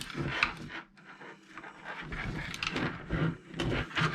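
Screwdriver prying a Mamba X speed controller out of its mount in an RC truck: irregular scrapes and short clicks.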